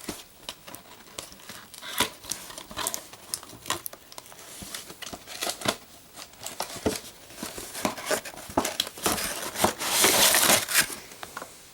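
Plastic and cardboard toy packaging being opened by hand: crinkling with many sharp clicks and snaps, with a longer, louder stretch of crinkling near the end.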